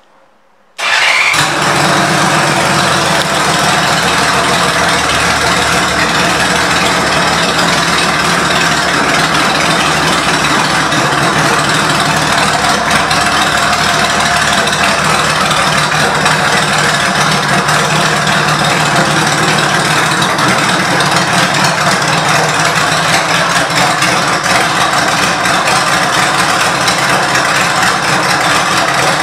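1997 Honda Valkyrie 1500's flat-six engine with aftermarket exhaust pipes, coming in abruptly about a second in and then idling steadily.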